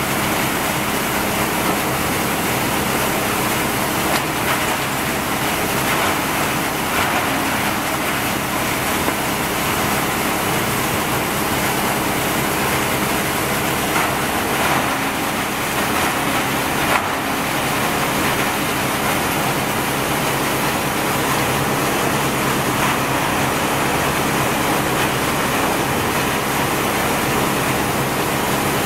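Wood sawdust crusher and its blower running at full speed: a loud, steady noise over a low hum, with occasional short knocks as wood scraps shovelled into the hopper are crushed.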